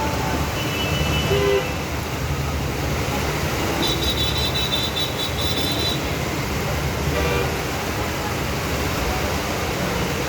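Rainy-street traffic: a steady hiss of rain and wet road under running engines, with car horns honking. A short horn sounds about a second in, a higher horn sounds for about two seconds from about four seconds, and another short honk comes near seven seconds.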